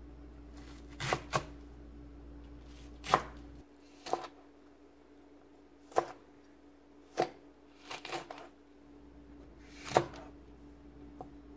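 Kitchen knife chopping green onion and then red and green chili peppers on a cutting board. About a dozen separate, sharp knocks of the blade on the board come irregularly, roughly a second apart.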